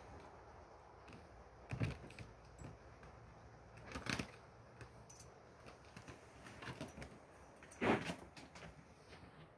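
Quiet room tone broken by three sharp knocks a few seconds apart, with a few fainter ticks between them.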